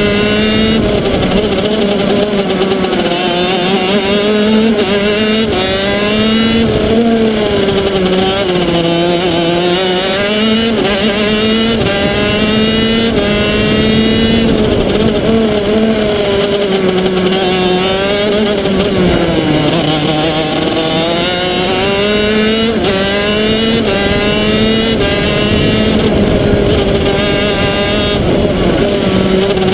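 125cc two-stroke shifter kart engine at racing speed, heard from on board. Its pitch climbs and falls through the corners, with sudden steps as it changes gear.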